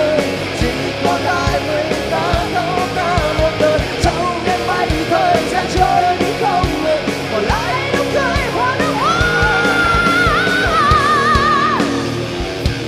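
Rock band playing live with heavy drums and distorted guitars. About halfway through, a lead line climbs into long held notes with bends and a wavering vibrato, then drops away near the end.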